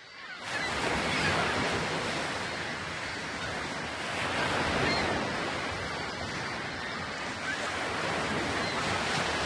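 Ocean waves washing in a steady rushing surf, fading in over the first second and gently swelling and easing.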